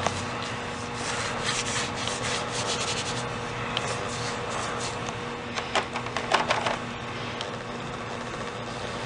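A hand tool scraping over an epoxy-coated balcony deck in quick repeated strokes while a patch is worked in. The strokes come strongest in two spells, about a second and a half in and again around six seconds, over a faint steady hum.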